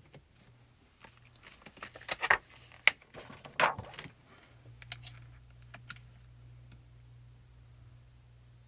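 Clear photopolymer stamp and other plastic stamping supplies being handled: a run of light clicks and crinkles about two to four seconds in, then a low steady hum from about halfway.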